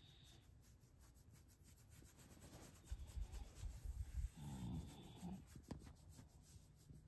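A hand rubbing a sleepy English bulldog's belly fur, with a few low thumps. About four and a half seconds in, the bulldog lets out a low grunting breath lasting about a second.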